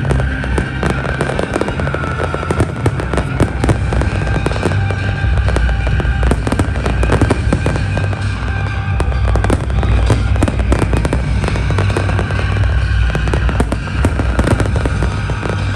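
Fireworks display: a dense, continuous stream of bangs and crackling bursts over a low rumble, with music playing along.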